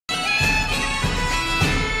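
Intro theme music: long held, reedy notes over three drum beats about half a second apart.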